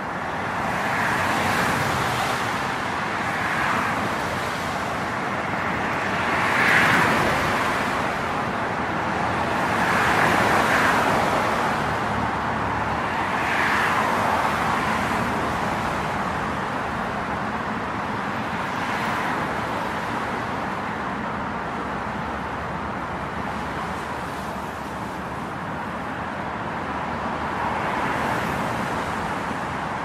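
Road traffic: a steady hum of tyres and engines, with cars passing one after another every few seconds, each swelling and fading.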